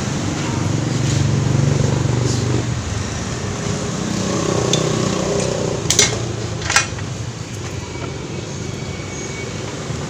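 Road traffic passing, with a low vehicle hum in the first few seconds. Two sharp knocks, like tools or parts striking, come about six and seven seconds in.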